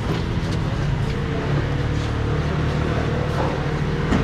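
An engine running steadily with a low hum, with a few faint knocks over it.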